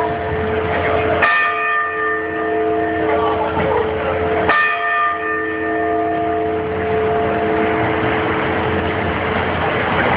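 Sapporo Clock Tower's bell striking the hour: two strokes about three seconds apart. Each rings on with several steady tones, and the ringing fades away by about eight seconds in, over a steady background noise.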